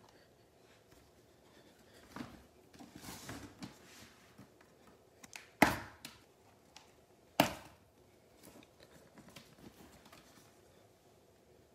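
A monogram canvas and leather dog carrier being handled, with soft rustling, then two sharp clicks about two seconds apart from the metal press-studs on its end flap being worked.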